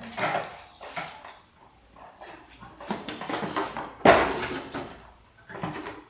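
The plastic lid catch of a Samsung SC4130 canister vacuum cleaner is pressed and the dust-compartment lid is lifted open by hand. There are a few light plastic handling sounds and one sharp clack about four seconds in.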